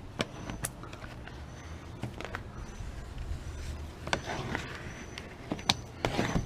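Handling noise from working at an open car door: a scattering of light clicks and knocks, with a couple of brief scraping rustles in the second half, over a faint steady low hum.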